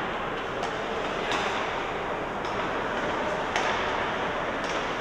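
Ice hockey game rink noise: a steady hiss of skating and arena noise, with five sharp clacks of stick and puck, about one a second.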